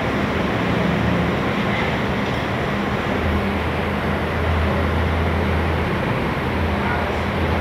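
Diesel engine of a Mercedes-Benz OH 1626 coach running at low revs as the bus manoeuvres slowly, a steady low drone that grows stronger about three seconds in.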